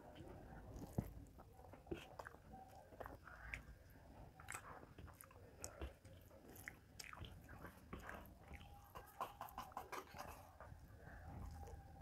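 Faint close-miked eating sounds: soft chewing and small wet clicks and smacks of fingers mixing rice with mashed spinach on a steel plate, scattered irregularly.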